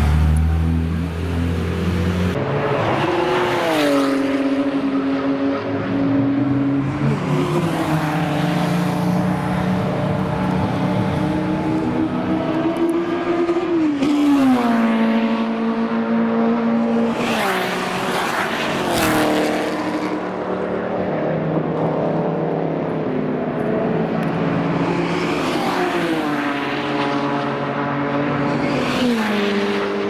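Race cars driving past one after another at speed, their engines revving and falling in pitch as each goes by. A low, steady engine note from a slow-rolling car comes first.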